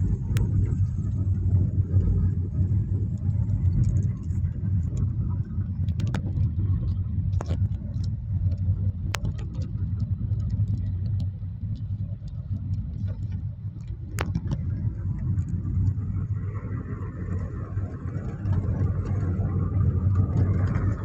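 Car cabin noise while driving: a steady low rumble of engine and road, heard from inside the car, with a few sharp clicks scattered through it. A higher hiss joins in for the last few seconds.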